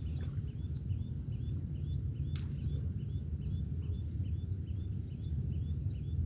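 A bird chirping in a quick, even series of short high notes, about two or three a second, over a steady low rumble, with one sharp click about two and a half seconds in.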